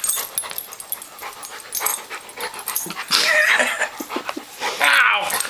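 Bernese mountain dog playing rough, with scuffling of paws and fur and short play noises from the dog. It is loudest twice, about three and five seconds in.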